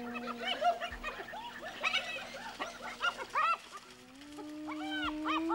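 Spotted hyenas calling: a quick run of short rising-and-falling cries. About four seconds in, one hyena starts a long, low whoop that slowly rises in pitch.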